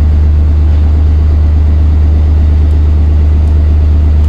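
Free-fall lifeboat's diesel engine idling steadily just after an easy start, a loud, even low hum heard inside the enclosed hull.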